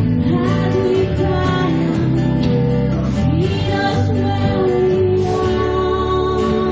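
Live worship band playing a song, with guitar and keyboard and a woman singing along.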